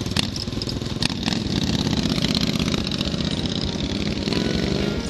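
Dirt bike engine running close by, getting louder about a second and a half in as the bike moves off. A few sharp clicks come in the first second and a half.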